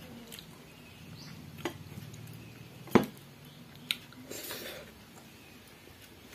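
Stainless-steel bowls clicking and clinking as fingers pick food from them, with one sharp knock about three seconds in, the loudest sound, and a short rustling noise a little over a second later.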